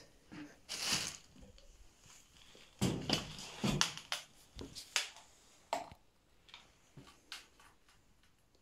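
Irregular knocks, crunches and rustles of clutter and debris being disturbed as someone moves through a junk-filled room, loudest about a second in and again around three to four seconds in.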